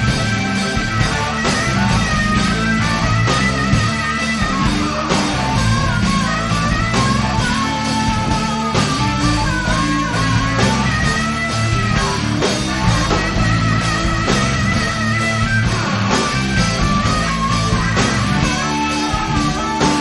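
Rock music: an instrumental passage led by electric guitar over bass and drums, with a steady beat.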